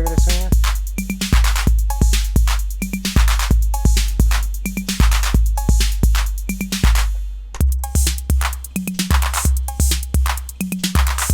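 808-style drum machine pattern looping: long booming bass drums, crisp hi-hat and percussion hits, and short pitched high-tom notes. About seven and a half seconds in it cuts briefly and restarts with a changed bass-drum boom, the same pattern now on the other TR-808 clone.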